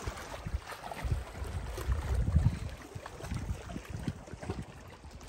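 Wind buffeting the microphone: an uneven low rumble that swells and fades, loudest about two seconds in.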